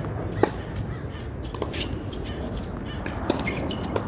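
Tennis balls struck by rackets during a doubles rally: several sharp pops a second or more apart, the loudest about half a second in, over steady background noise.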